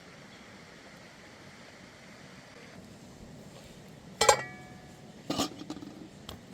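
Metal cooking gear clanking twice over faint outdoor background noise. The first knock is sharp and rings on in several tones, the second rings lower, and a few light clicks follow.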